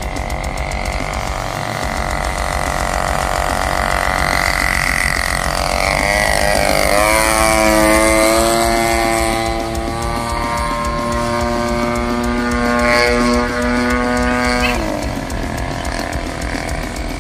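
50cc gasoline engine of a large RC biplane flying past. Its note drops in pitch as the plane passes low, about six seconds in, then holds as a steady, high-pitched drone while the plane climbs, and cuts off suddenly near the end.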